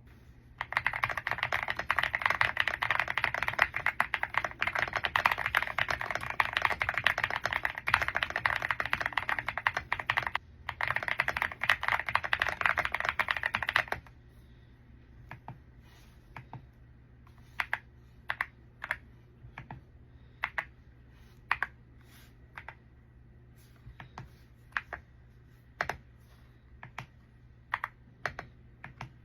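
Womier X75 mechanical keyboard being typed on rapidly for about fourteen seconds, with a brief pause partway through, then single keys pressed one at a time, about one or two a second.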